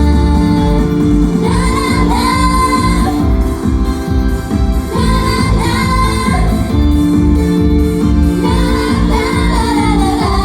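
Female vocals singing a Japanese pop song live with full instrumental accompaniment, in three sung phrases with the backing music carrying through the gaps.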